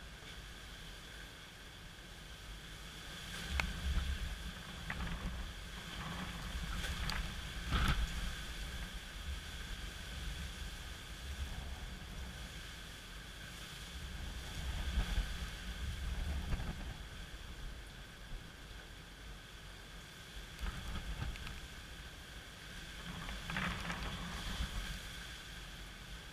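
Gusty wind ahead of a hurricane buffeting the microphone in surges, loudest about eight seconds in and again around fifteen seconds, over a steady hiss of rain.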